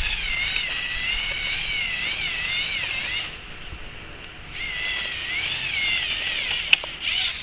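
Electric motors of a Lego Technic halftrack whining as it drives over dirt, the pitch wavering up and down with the load. The motors stop for about a second and a half around three seconds in, then run again. There is a sharp click near the end.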